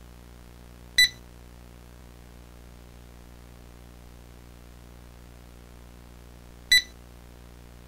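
Two short, sharp electronic beeps, about six seconds apart, over a steady low hum and hiss like analog tape static.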